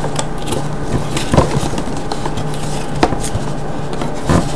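Cardboard headphone box with a plastic window being handled and turned in the hands, giving a few light knocks and rustles, about three over a few seconds, over a steady low hum.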